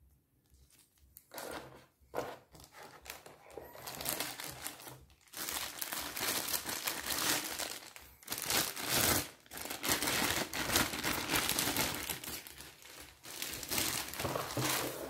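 Clear plastic bag crinkling and rustling as a pistol wrapped in it is handled and pulled out. It starts about a second in, grows louder, and is busiest in the second half.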